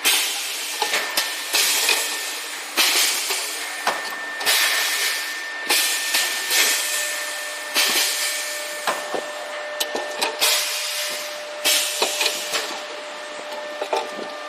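Heat-transfer printing machine at work: a series of sharp bursts of hiss, about one a second, each starting suddenly and fading quickly, over a faint steady tone.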